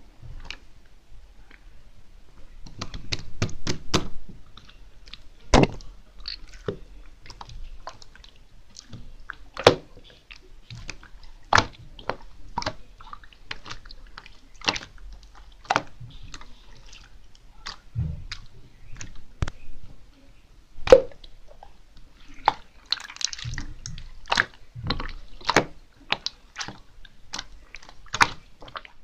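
Slime with add-ins being squeezed and pressed by hand, giving irregular sharp wet pops and clicks, a quick run of them about three seconds in.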